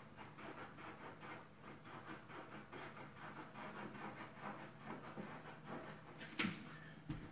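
Quick, even rubbing or scraping strokes, several a second, from hand work on the vinyl flooring at the wall edge, with one sharp knock about six seconds in.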